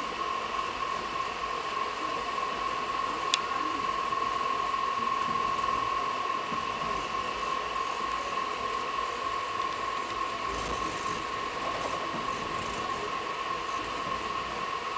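Running noise of a moving express train heard inside an air-conditioned coach: a steady hiss with a constant high whine, and one sharp click about three seconds in.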